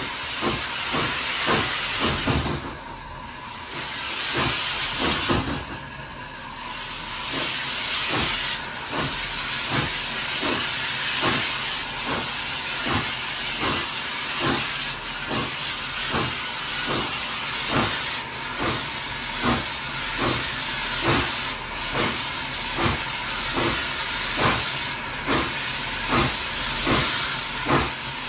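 Hunslet Austerity 0-6-0 saddle tank steam locomotive working along, its exhaust beating steadily at about two beats a second under a constant loud steam hiss, briefly quieter twice near the start.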